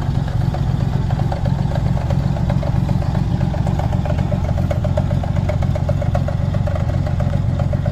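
An engine running steadily at idle close by, a low hum with a fast, even ticking over it.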